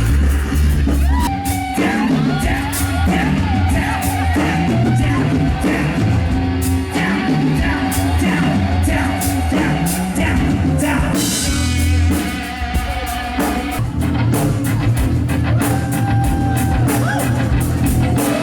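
A live rock band playing loudly, with drums, bass and electric guitar, and a voice singing or yelling over it.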